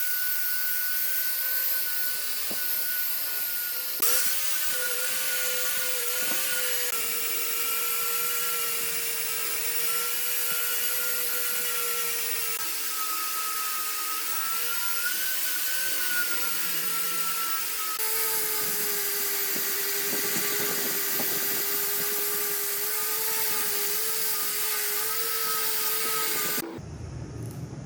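Electric power tool running steadily, its motor whine wavering slightly in pitch over a grinding hiss, then stopping abruptly near the end.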